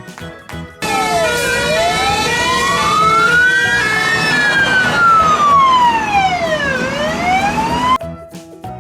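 Fire truck siren wailing: one slow rise and fall in pitch, then rising again before it cuts off suddenly near the end. Children's music plays briefly before and after it.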